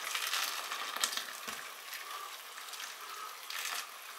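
Hot water poured in a steady stream into a large stainless steel stockpot, splashing over potatoes and mushrooms and into the water already in the pot as it fills.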